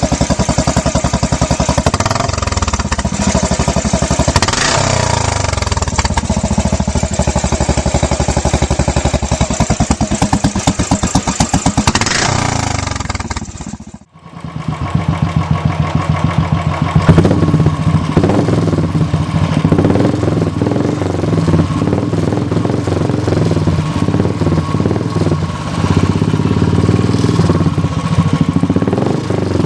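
Royal Enfield Bullet single-cylinder engine thumping at idle through an aftermarket silencer, with the throttle blipped a few times. About halfway it cuts off abruptly and a second recording follows: the same kind of engine idling with a different exhaust note, revved once a few seconds later.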